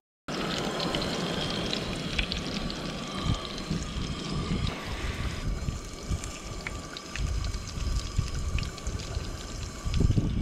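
Wind buffeting the microphone: a steady rush with irregular low rumbling gusts.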